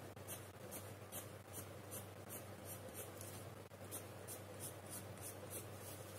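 Soft 6B graphite pencil scratching on drawing paper in quick, short strokes, about three a second, as it draws tufts of grass.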